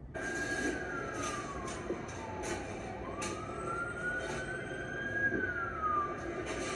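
Fire engine siren wailing in slow sweeps: its pitch falls steadily for about two and a half seconds, then rises again and starts to fall near the end, over a noisy street background.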